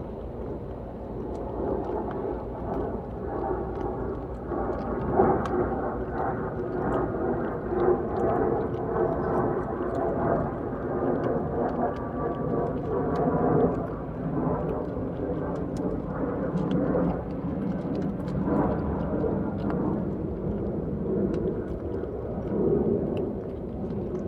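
Several cats eating close to the microphone: a continuous rough rumbling that swells and fades, with faint small clicks of chewing through it.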